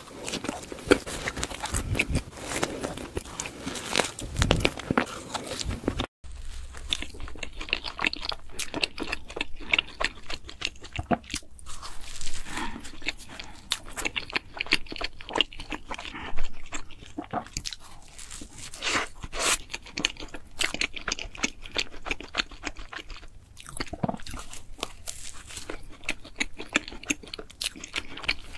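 Close-up eating sounds: biting into and chewing soft, sugar-dusted cream-filled doughnuts, with many small wet mouth clicks and smacks. There is a brief gap about six seconds in.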